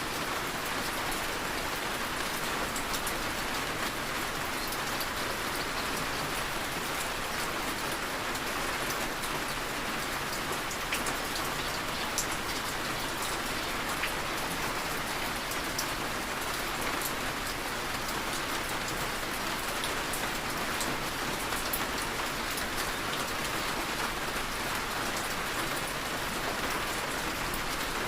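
Heavy rain falling steadily, with scattered sharp drop ticks.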